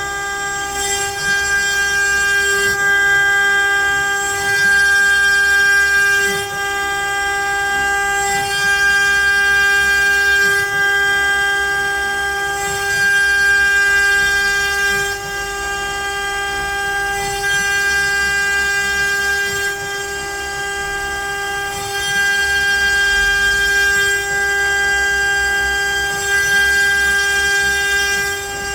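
CNC router spindle whining at a steady high pitch while the bit mills letters into pine, the cutting noise swelling and easing every few seconds as the toolpath moves.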